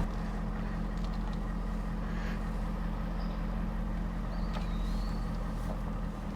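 Truck engine running steadily at low speed as the truck is slowly reversed up to a trailer hitch: a low, even hum.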